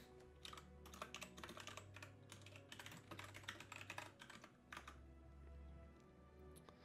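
Faint typing on a computer keyboard: a quick run of key clicks for about four seconds that stops about two-thirds of the way through.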